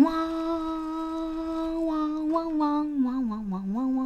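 A woman humming a wordless tune: one long held note, then a melody stepping up and down.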